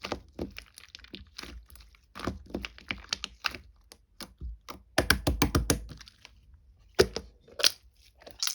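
Slime being squeezed and stretched by hand, giving sharp clicking and crackling pops, with a dense run of pops about five seconds in and a couple of louder snaps near the end.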